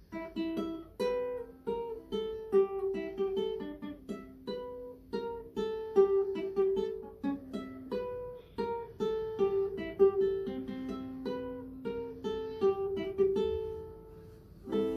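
Ukulele played as a picked melody of single plucked notes, a few notes a second, each note fading before the next.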